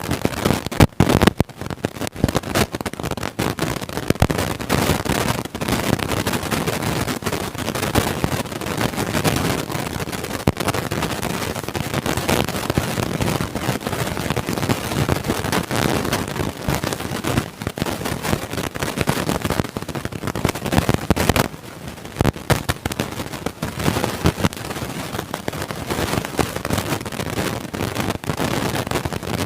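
Loud, continuous crackling and rustling noise from a microphone damaged by a goat's bite, dense with sharp clicks; it eases off briefly about two-thirds of the way through.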